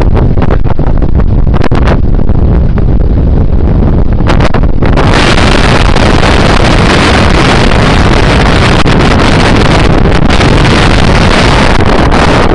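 Heavy wind buffeting on the microphone, loud and distorted, growing stronger about five seconds in.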